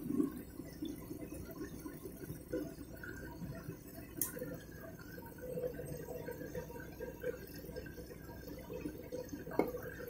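Candy front-loading washing machine drum tumbling a very sudsy load during the rinse, water and foam sloshing and splashing against the door glass, with a light knock near the end.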